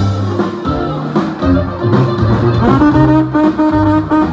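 Live band music with no singing: brass horns, trombone among them, play held notes of a melody over a plucked upright bass and guitar.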